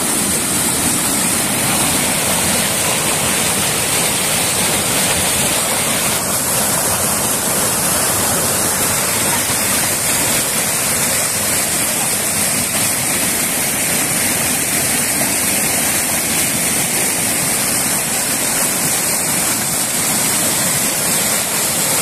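Waterfall cascading down a rock slope: a steady rush of water, with a slight change in its tone about six seconds in.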